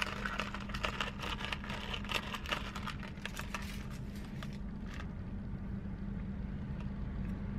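A straw stirring ice in a plastic cup of iced cold brew coffee, a quick rattling clatter of ice for the first three seconds or so that then dies away, over a steady low hum inside the car.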